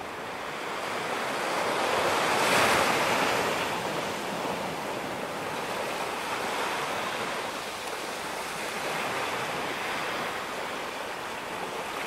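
Small waves breaking and washing up onto a sandy beach: a steady surf hiss that swells loudest about two and a half seconds in, then rises and falls more gently as further waves come in.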